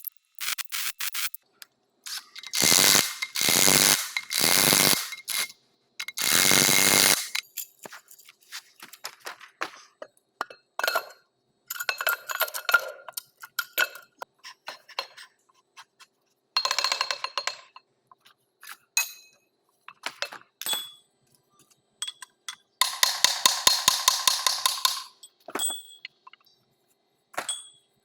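Workshop tool sounds on heavy axle parts: metal clinks, knocks and scrapes, with four loud noisy bursts of about a second each a few seconds in and a run of rapid even clicking near the end.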